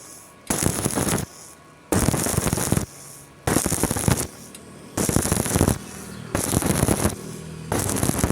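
Stick-welding arc crackling in repeated short bursts of under a second, about six of them with brief pauses between, as the arc is struck and broken again and again.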